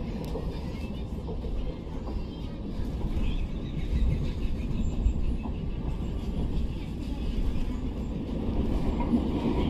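Running noise of a moving passenger train heard from inside the carriage: a steady rumble of wheels on rails that grows a little louder partway through, with one sharp knock about five seconds in.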